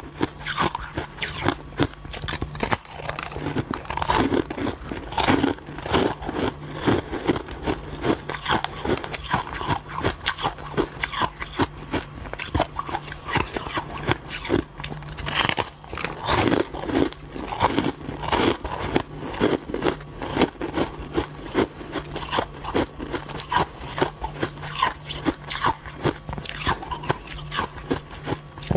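Close-up crunching and chewing of frozen shaved ice: crisp, irregular bites and grinding crunches, one after another.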